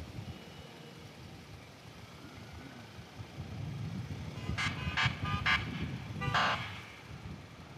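Low rumble of a motorcycle on the move, heard through a helmet microphone, with a vehicle horn tooting: four quick short beeps about four and a half seconds in, then one longer toot.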